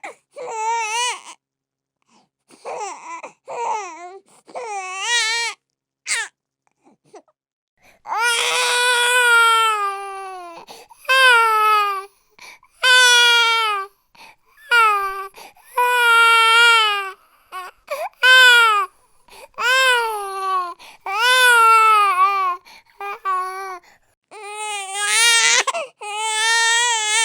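Infant crying: short, fussy cries for the first several seconds, then a run of loud wails, each a second or two long, with brief pauses for breath between them.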